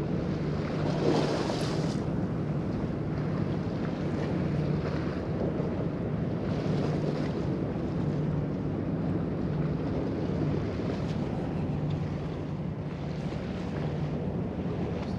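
Wind noise on the microphone over the wash of the sea, with a steady low hum underneath and a brief gust about a second in.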